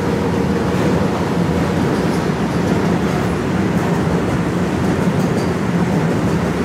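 Loaded petroleum tank wagons of a freight train rolling past, a steady rumble of wheels on the rails.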